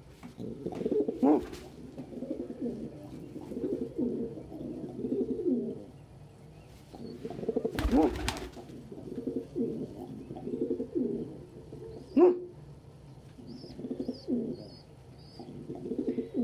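Domestic pigeon making a rough, pulsing coo in about eight bouts of roughly a second each. This is a sound that in lighter form is a pigeon's danger call and in harsher form a warning to another pigeon to back off. Two sharp knocks cut in, about eight and twelve seconds in.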